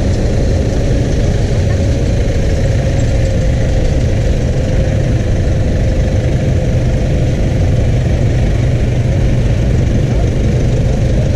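A steady, loud, low engine rumble, like a vehicle idling, with a faint steady tone above it.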